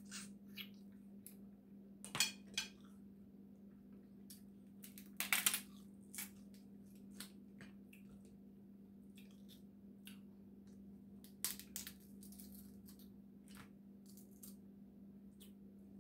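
Boiled Dungeness crab shell cracked and picked apart by hand while eating, with scattered snaps and crunches, the loudest a little after five seconds in. A steady low hum runs underneath.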